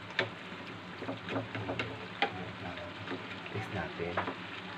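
Chicken and vegetables simmering in a frying pan, stirred with a wooden spatula that knocks against the pan several times, over a steady low hum.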